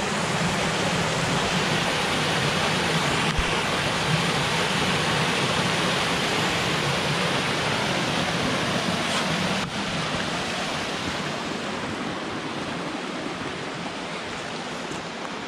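Muddy flash-flood water rushing down a normally dry rocky desert river bed and pouring over rock ledges, a steady rushing that grows fainter over the last few seconds.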